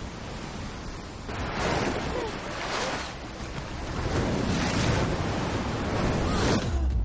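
Whitewater river rapids rushing and churning, swelling louder in surges from about a second in.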